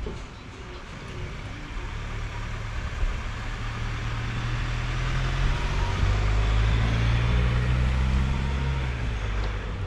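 A car driving past close by: a low engine hum that swells over several seconds and then fades.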